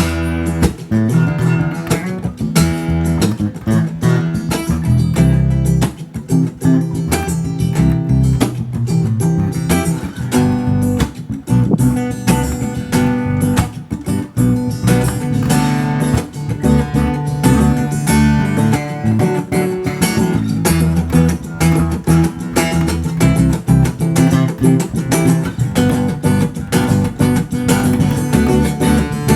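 Background music: strummed and plucked guitar with a steady beat.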